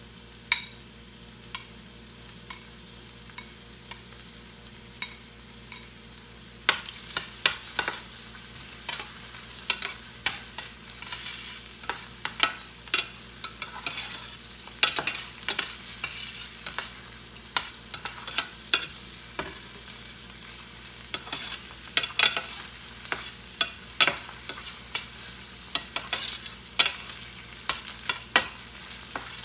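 Diced onion and shiitake mushroom sizzling in oil in a stainless steel frying pan, with a metal spoon clicking and scraping against the pan as they are stir-fried. The sizzle gets louder about seven seconds in, and the clicks come more often from then on.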